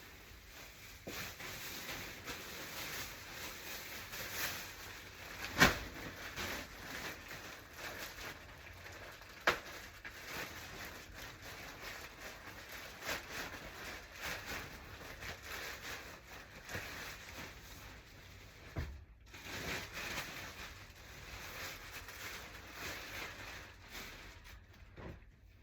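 Bedding and its plastic packaging being handled: a steady rustling and crinkling, with a sharp knock about five and a half seconds in and another about four seconds later.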